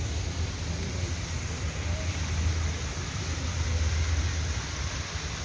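Wind buffeting the microphone: a wavering low rumble over a steady hiss.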